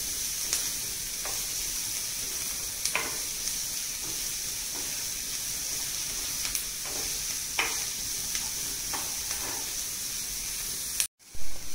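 Chopped onions sizzling in butter in a non-stick frying pan, stirred with a plastic spatula that scrapes and taps the pan every second or so. The sound drops out briefly near the end, followed by a louder knock.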